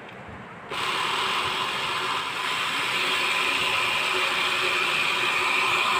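Electric blender switched on less than a second in, then running steadily at high speed, grinding granulated sugar into powdered sugar.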